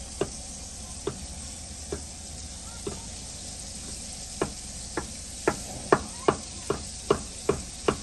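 Knife chopping on a cutting board: single sharp knocks about once a second, quickening to about two a second over the second half. Underneath, a steady sizzle of food frying.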